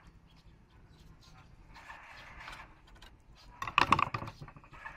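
A hand gripping and knocking against the metal solenoid valve block on top of a pneumatic valve actuator: a quick rattle of clicks and knocks from about three and a half seconds in.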